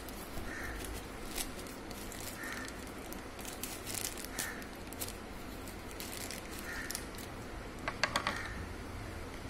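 Plastic packaging crinkling and rustling as a courier mailer and the plastic-wrapped item inside are handled and turned over. A faint short call repeats about every two seconds in the background, with a sharper burst about eight seconds in.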